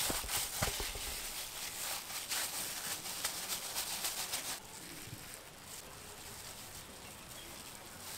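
Plastic-gloved hands squeezing and kneading mashed potato in a metal bowl: a quick, irregular run of soft squelching clicks that stops about four and a half seconds in, followed by quieter handling of the potato as it is shaped.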